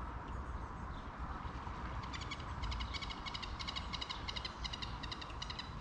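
A songbird's rapid chattering song, a quick irregular run of short high notes starting about two seconds in, over a steady low background rumble.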